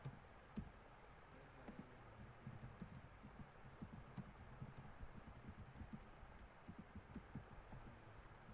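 Faint typing on a computer keyboard: irregular key clicks, sparse at first and coming thick and fast from about two and a half seconds in.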